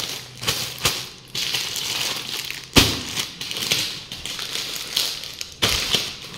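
Plastic-wrapped packs of D-cut carry bags crinkling and rustling as they are handled. There are sharp crackles throughout, the loudest about three seconds in and another near the end.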